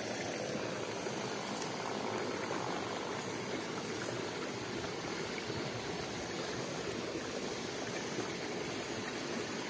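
Steady rushing noise of running water, with no distinct events.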